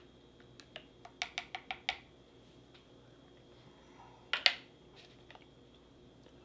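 Plastic spork stirring coffee in a ceramic mug, clicking against the inside of the mug in a quick run of taps for the first couple of seconds. About four seconds in comes a louder double clack as the spork is set down.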